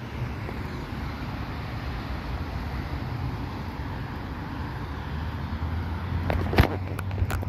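Steady vehicle and road noise with a low hum, and two sharp clicks near the end.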